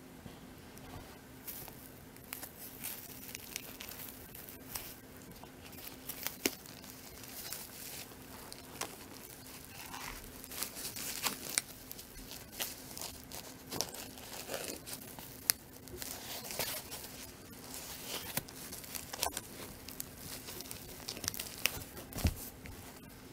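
Plastic foam wrap and tissue paper crinkling and rustling as a small leather wallet is unwrapped by hand, in irregular crackles with scattered sharp clicks, over a faint steady hum.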